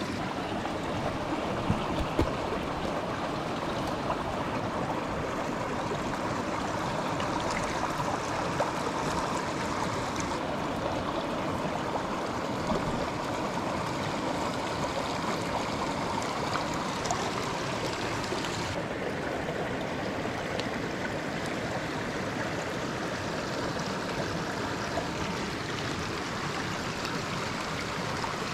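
Mountain stream rushing steadily over stones, with a few light clicks and taps close by.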